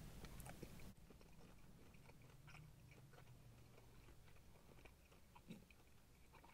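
Faint chewing of a mouthful of fried chicken: soft, scattered mouth clicks and smacks.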